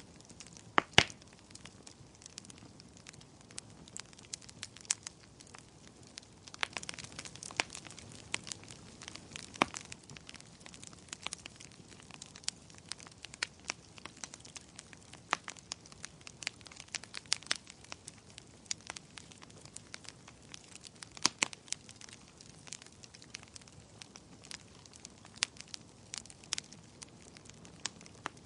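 Wood fire in a fireplace crackling, with irregular sharp pops and snaps over a soft hiss; a burst of denser crackling about a quarter of the way in, and a few louder pops.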